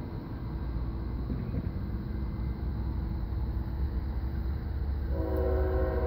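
Low rumble building as a CSX diesel freight train approaches. About five seconds in, the locomotive's multi-chime air horn starts a steady blast.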